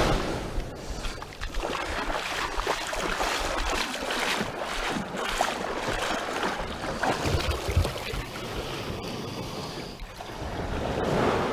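Wind buffeting the microphone over water washing and splashing, with gusty low rumbles and scattered small splashes.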